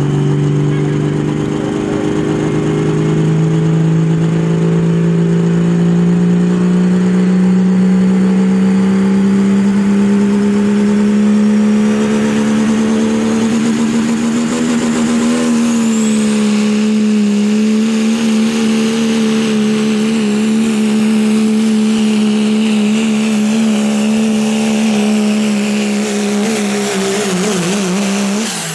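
1985 Dodge diesel pickup pulling a sled at full throttle, its engine a loud, high-revving drone that climbs slowly in pitch for about fifteen seconds, then holds steady near the top. A brief high whistle rises about halfway through. Near the end the engine falls off as the pull ends.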